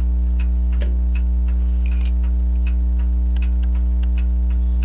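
French crystal regulator clock's open escapement with jewelled pallets ticking faintly, a few ticks a second, under a loud steady mains hum. The hum is a grounding fault in the recording: the camcorder is on AC power and the microphone, which is grounded only when held, has been set down.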